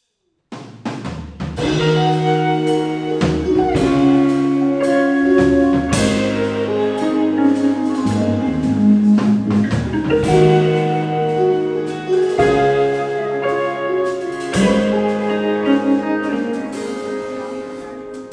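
A live band plays the instrumental introduction to a song: sustained chords over a bass line that change about every two seconds, with a drum beat. It starts about half a second in.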